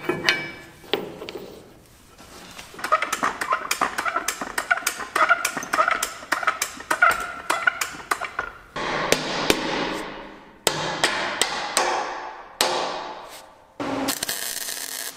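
Hammer striking the steel parts of a grain auger: a quick run of light taps, then several heavier blows that ring and fade away, with a short rushing noise near the end.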